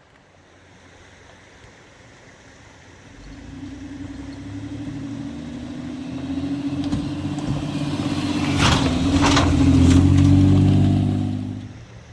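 A 4WD's engine running and growing steadily louder over several seconds, as if coming closer, with two short rushes of noise about nine seconds in, then stopping abruptly near the end.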